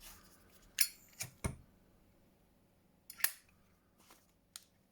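Zippo lighter being handled: a few sharp clicks and snaps, typical of its hinged metal lid being flipped open and snapped shut. Three come close together about a second in, and a few more sound later.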